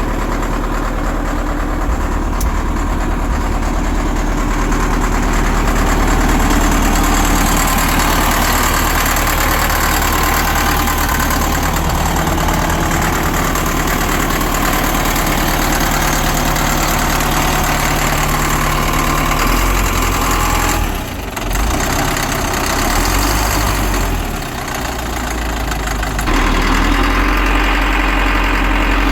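Caterpillar 950 wheel loader's diesel engine idling steadily after sitting unused for about 15 years. Its note changes a few times in the second half, with two brief dips in loudness.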